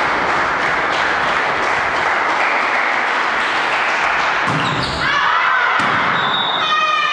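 Loud, steady din in a sports hall during volleyball play, with a run of short, high, falling squeaks in the last two seconds.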